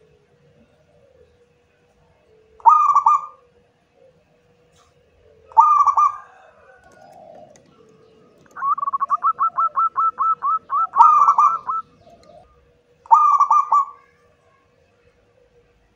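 Zebra dove (perkutut) cooing. Short coos come a few seconds apart, and around the middle there is a fast run of about a dozen staccato notes, some four a second, that ends in a fuller coo. A faint steady hum lies underneath.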